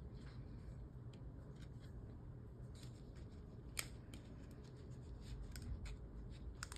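Gloved hands peeling a barcode label from its backing and pressing it onto a plastic blood collection tube: scattered small crisp clicks and crackles, the sharpest nearly four seconds in and a quick pair near the end.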